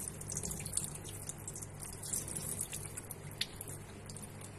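Cloudy rinse water from washed bulgur being poured off a steel bowl into a stainless steel sink, splashing and trickling with many small drips.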